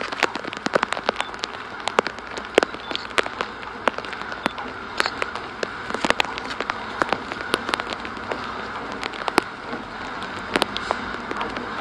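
Rain falling, with many irregular sharp ticks of drops over a steady hiss.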